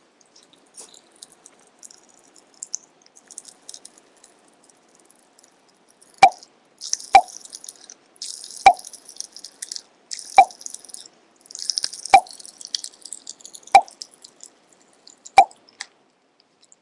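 Pop Rocks candy crackling and fizzing in a mouth close to the microphone: faint at first, then dense crackling about halfway through, with a sharp click about every second and a half.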